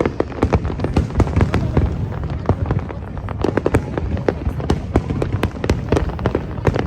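Fireworks going off in a rapid, irregular run of bangs and crackles, several a second, over a continuous rumble of further explosions.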